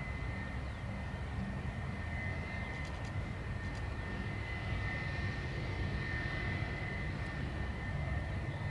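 Airbus A320 airliner's jet engines running as it rolls along the runway after landing: a steady low rumble with a high, even whine held throughout.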